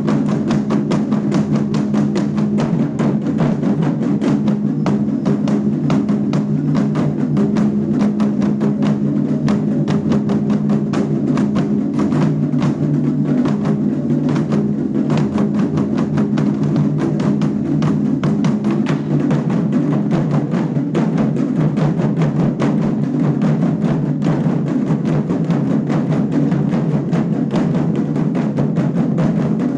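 A drum ensemble playing loud, continuous drumming: many strikes a second, with no pause.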